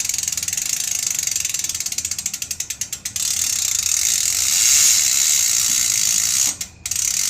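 Koozer HA04N rear bicycle hub freewheeling, its 6 pawls and 72-point engagement making a fast, buzzing ratchet click. The clicking slows into separate clicks about two to three seconds in as the wheel coasts down. It picks up to full speed again after about three seconds, with a brief break near the end.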